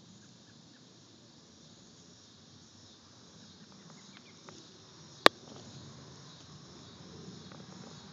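Crickets chirping steadily in the background, with one sharp click a little past halfway through.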